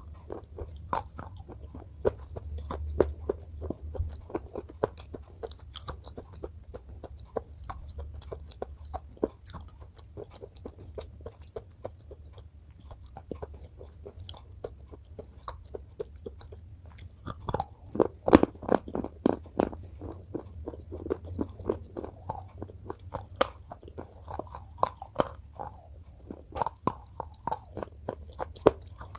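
Close-up biting and crunching of slate pencil pieces with a white paste: a steady run of sharp cracks and chewing crunches. The crunches come thickest and loudest about two-thirds of the way through.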